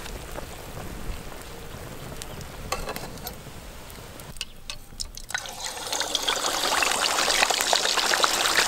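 Water trickling off a boiled, string-tied pork roll as it is lifted from the pot. About halfway through, after a brief pause, hot oil in a pot starts sizzling and crackling around the roll as it deep-fries, growing louder and staying loud.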